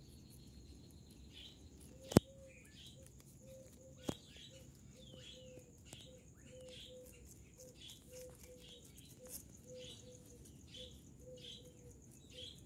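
Birds chirping over and over, short quick calls roughly two a second, with a faint repeating lower note and a steady high-pitched hum behind them. A sharp click about two seconds in, and a fainter one about two seconds later.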